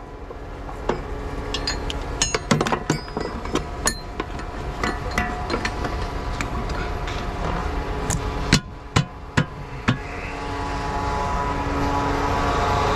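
Sharp, irregular metal clanks and knocks over the steady low running of the John Deere 8RX 410 tracked tractor. From about ten seconds in, the engine noise builds and grows louder.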